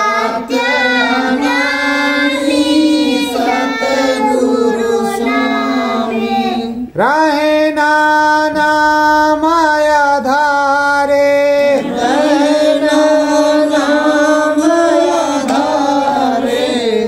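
A woman's voice singing a Hindi devotional prayer song (bhajan) in long, drawn-out notes, with a short break about seven seconds in.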